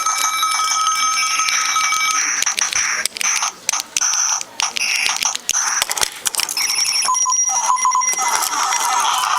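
Novelty sound-effect keychains playing a string of short recorded sound effects through their tiny speakers. A bell-like ringing tone stops about two seconds in and is followed by several different short effects with brief gaps between them.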